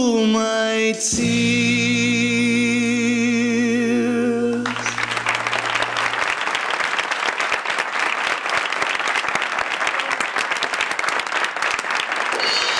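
A man and a woman finish a song over a small band, holding the last note with vibrato. It cuts off about four and a half seconds in, and the audience breaks into steady applause.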